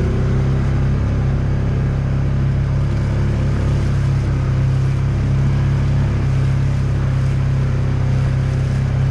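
Polaris side-by-side's engine running at a steady speed, an even drone that holds one pitch.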